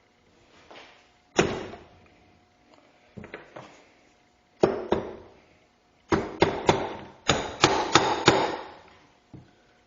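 Light taps of a plastic mallet on an engine crankcase, seating the case half: single taps and a pair first, then a quick run of about eight taps.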